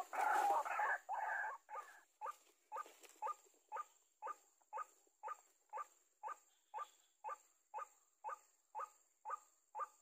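White-breasted waterhen calling: a loud jumble of harsh notes for the first second and a half, then a steady run of single harsh notes about two a second, slowly fading.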